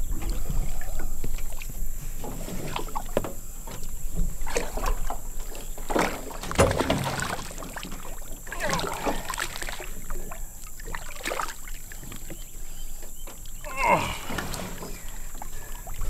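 Water sloshing and splashing against the side of a boat as a netted alligator is hauled alongside, with irregular knocks and rubbing against the hull; the loudest knock comes about six and a half seconds in.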